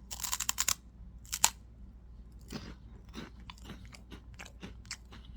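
Biting into a rolled, puffed corn snack: a quick run of crisp crunches, one sharp crack about a second and a half in, then softer, irregular chewing.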